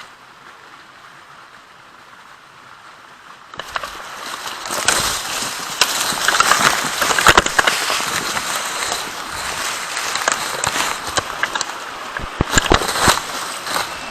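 Rustling, crackling and scraping of a person scrambling through a ravine, starting about three and a half seconds in and going on steadily after that.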